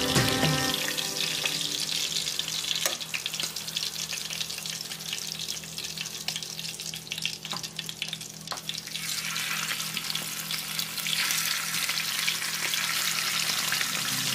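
Whole sea bream frying in hot oil in a pan: a steady crackling sizzle with a few sharper pops, growing louder about nine seconds in as more raw fish go into the oil.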